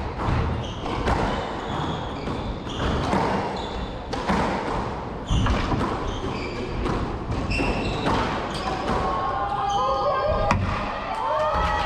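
Squash rally: sharp hits of the ball off the rackets and court walls, roughly one every second, mixed with short high squeaks of shoes on the court floor.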